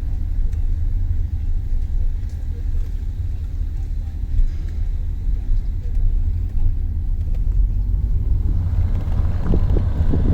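A steady low rumble throughout, with louder mid-range noise and some brief knocks building near the end.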